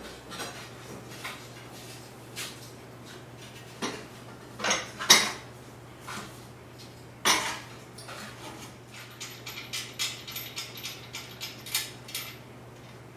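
Metal parts and hand tools clinking and knocking against each other, with a quick run of light clicks near the end.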